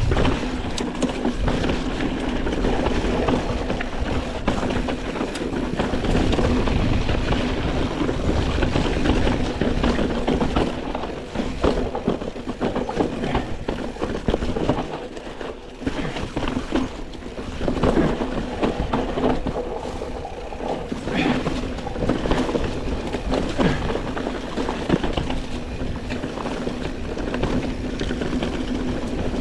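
Mountain bike riding down a rough dirt trail: tyres rolling and crunching over dirt, roots and dry leaves, with the chain and frame rattling in quick knocks and a steady hum underneath. It quietens briefly about halfway, then picks up again.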